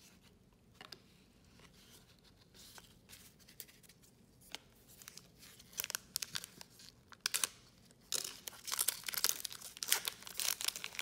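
Faint rustle of trading cards being handled, then a trading-card pack's wrapper crinkling and being torn open, the crackling getting louder and denser over the last few seconds.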